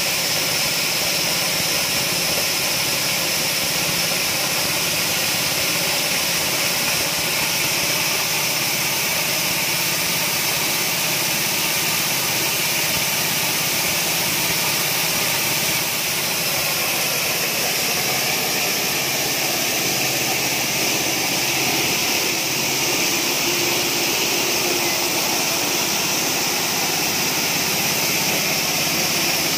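Small single-cylinder petrol engine driving a mini coffee huller, running steadily at a constant speed with an even hiss.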